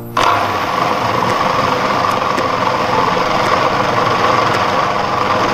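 Electric food processor running steadily, its blade churning a thick fish-and-egg-white paste; the motor switches on abruptly about a quarter second in.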